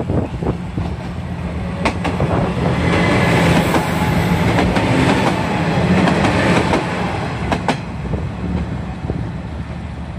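Three-car KiHa 120 diesel railcar train passing close by: diesel engines running and steel wheels clattering over the rails, loudest in the middle and fading as it moves away. A few sharp clicks stand out, two of them close together about seven and a half seconds in.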